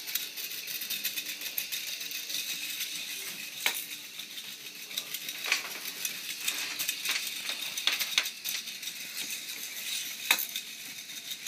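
K'NEX plastic roller coaster model running: a steady fine clatter from its plastic chain lift and the car rolling along the plastic track, with a few sharper clicks standing out.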